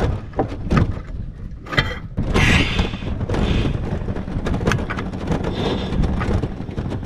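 A portable gas camping burner being lit: a series of clicks and knocks as it is handled and sparked, with short bursts of gas hissing, the strongest about two and a half seconds in. A steady low rumble runs underneath.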